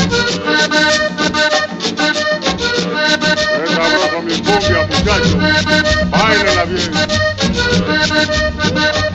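Accordion-led cumbia (gaita) playing loud through a sonidero sound system, the accordion melody over a steady, even percussion beat.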